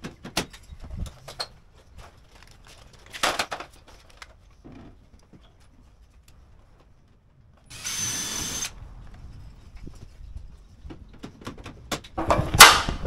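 Pop-riveting a sheet-metal rain head: a cordless drill whirrs for about a second, partway through, drilling a rivet hole. Around it are scattered clicks and knocks of the fitting work, and a loud sharp snap comes near the end.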